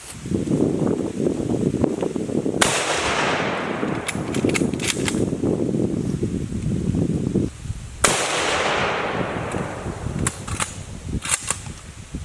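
Two gunshots about five and a half seconds apart, each followed by a long echo that slowly fades, with a few sharp clicks after each shot.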